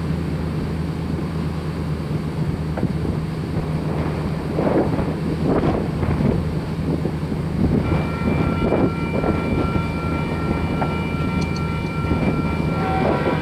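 Approaching Union Pacific intermodal train's diesel locomotives, still out of sight: a steady low drone under gusts of wind on the microphone. About eight seconds in, a distant locomotive horn starts sounding and holds, and more horn notes join near the end.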